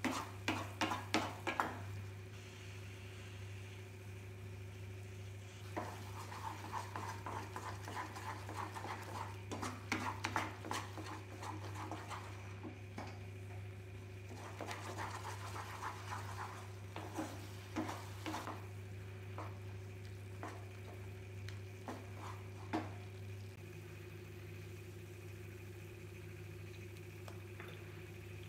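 Wooden spatula stirring and scraping thick, sticky banana halwa around a nonstick pan, in bursts of strokes with pauses between, over a steady low hum.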